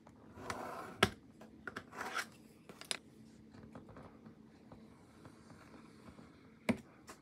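Craft knife scoring plasticard sheet along a steel ruler on a cutting mat: a couple of short scratchy strokes in the first few seconds, with sharp taps about a second in and again near the end.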